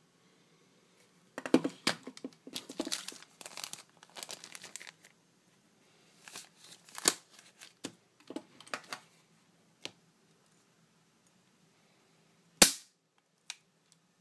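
Plastic zip bag crinkling as it is handled, then near the end a single sharp crack of a BB pistol fired at the phone screen inside the bag, followed by a smaller click.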